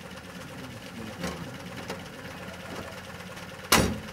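An engine idling steadily, with a few faint clicks and one short, loud knock near the end.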